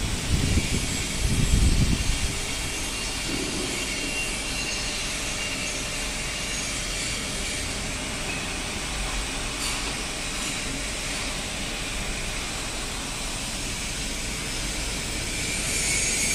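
Steady whirring hiss of workshop machinery running, with a few low bumps on the phone's microphone in the first two seconds.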